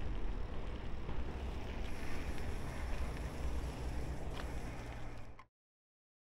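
Wind buffeting and road rumble picked up by a DJI Action 3 action camera's built-in microphone while riding a bicycle, a steady noise with a heavy low rumble. It cuts off suddenly about five and a half seconds in, leaving silence.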